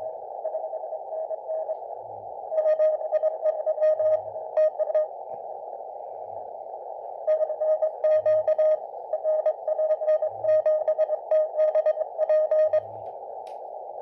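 Morse code (CW) signal keyed on a shortwave receiver: a tone sending dots and dashes over steady hiss in a narrow filter, faint at first, then loud in two long runs. The operator takes the signal for one arriving long path over the North Pole through the aurora.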